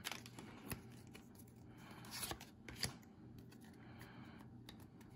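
Faint handling of Pokémon trading cards: a few short, soft flicks and slides as the cards come out of the pack and are squared into a stack.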